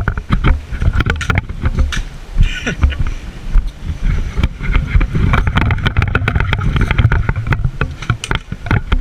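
Wind buffeting and handling noise on the microphone, an uneven rumble broken by many short clicks and knocks.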